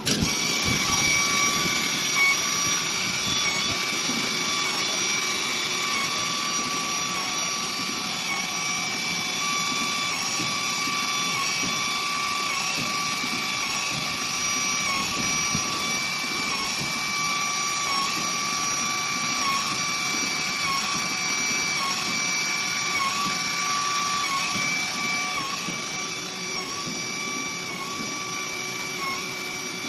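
CNC nesting router spindle starting abruptly and running with a steady high whine over a rushing noise, its pitch dipping slightly now and then.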